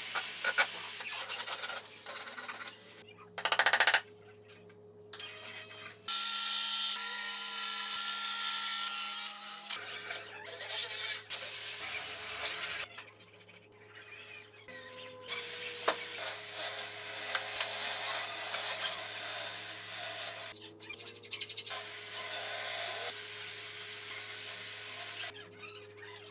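Woodworking tool sounds in short edited segments: rubbing and scraping, and a power tool running loudly for about three and a half seconds starting about six seconds in, with a steady hum beneath.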